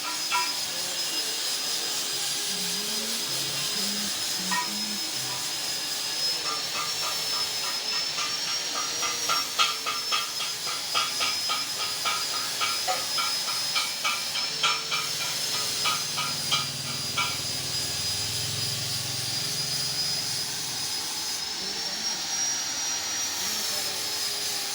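Two-blade areca nut splitting machine running: a steady hiss with a high, slightly wavering whine, and a quick run of sharp clicks and cracks for about ten seconds through the middle.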